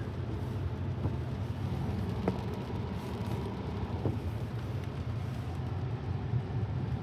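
Steady road and tyre noise of a Tesla driving on a rain-wet road, heard inside the cabin as a low hum, with a few faint ticks.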